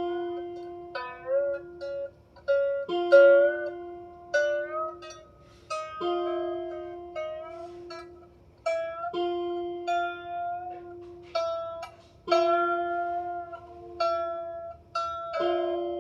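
A 16-string lyre harp being tuned. Its strings are plucked one at a time: a lower string is struck about every three seconds, and higher strings are plucked in between. Some of the higher notes slide briefly in pitch, as the tuning peg is turned while the string rings.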